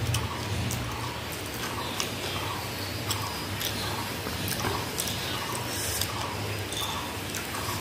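Wet, rhythmic chewing of fuchka (panipuri), about two chews a second, with small mouth clicks and squishes. Near the end the spiced water sloshes a little as the shells are dipped into the bowl by hand.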